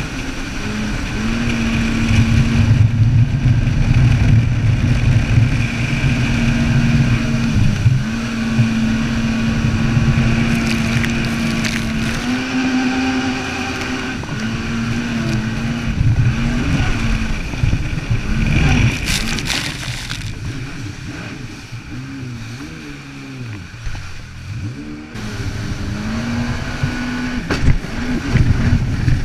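Jet ski engine running at speed, its pitch holding steady for long stretches, then rising and falling as the throttle is worked, with a dip about three quarters of the way in before it picks up again. Water rushes past with a steady hiss.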